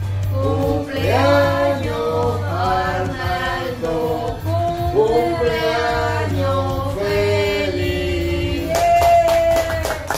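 Two women and a man singing a birthday song together, unaccompanied. Near the end they hold a last long note while clapping starts.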